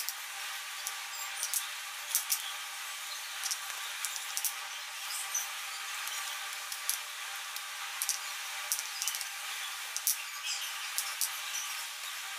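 A knife scraping seeds and pulp out of halved bitter gourds on a wooden cutting board: short, irregular scrapes and taps over a steady background hiss.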